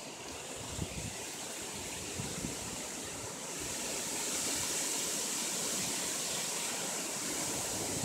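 High wind ahead of a cold front, a steady rushing that swells louder about halfway through, with a couple of low thumps in the first half.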